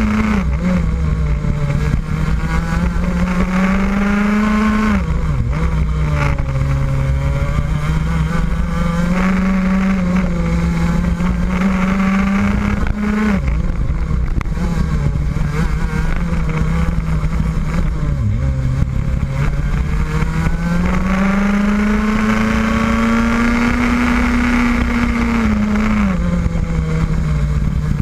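Rotax Max 125cc two-stroke kart engine at racing speed, heard from the driver's seat. Its revs climb slowly along the straights and drop sharply as the kart brakes for corners, about five times.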